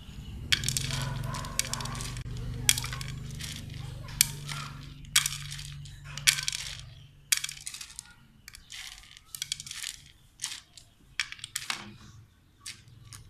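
Wooden chopsticks clicking against plastic bowls as small black seeds are picked up one at a time and dropped into another plastic bowl: a run of sharp, irregular clicks. A low steady hum sits underneath for the first half and fades out about midway.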